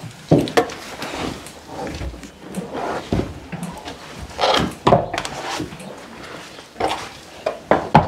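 Irregular wooden knocks and thumps as a Percheron draft horse shifts and turns about in its wooden stall.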